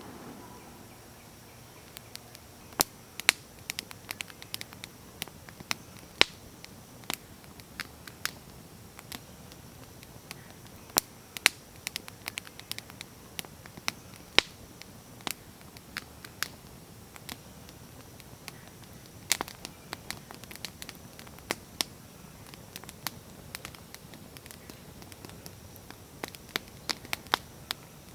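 Campfire crackling: irregular sharp pops of burning wood, one to three a second, over a faint steady hiss.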